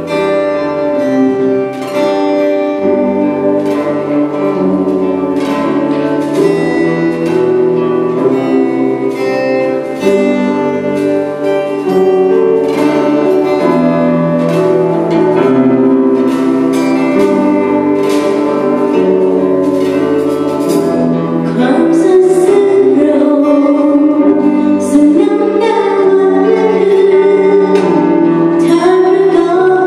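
Live worship band playing a song on keyboard and electric guitar. A woman's lead vocal through a microphone comes in during the second half.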